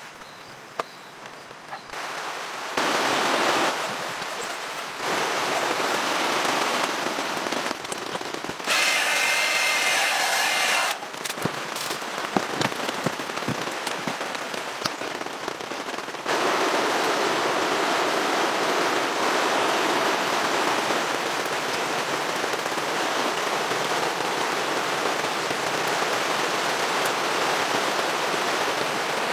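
Heavy rain falling steadily, in segments of different loudness that change abruptly. About halfway through comes a stretch of sharp crackling clicks. The second half is an even, unbroken rain sound on a tent.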